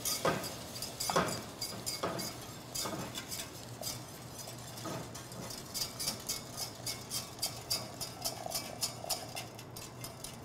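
Wire whisk working in a stainless steel saucepan, its wires clinking against the pan while warm milk is drizzled into a butter-and-flour roux. The clinks settle into a steady rhythm of about three a second in the second half.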